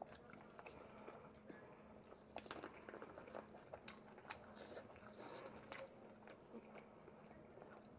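Quiet eating sounds: chewing with scattered small clicks and cracks, from people eating a seafood meal of crab legs, shrimp and corn.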